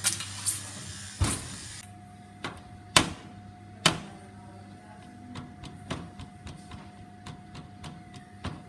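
Buttons on an oven's digital timer panel clicked repeatedly as the timer is set, a few louder knocks followed by a run of quick light ticks. A hiss cuts off about two seconds in, and a steady tone runs on after it.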